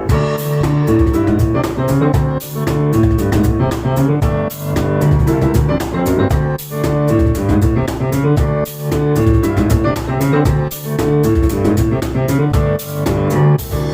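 Live instrumental music from a piano and cajon duo: fast, driving piano chords in a repeating pattern over sharp percussion hits.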